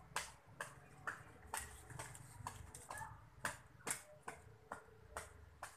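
Faint, irregular sharp clicks and taps, two or three a second, over a low steady rumble.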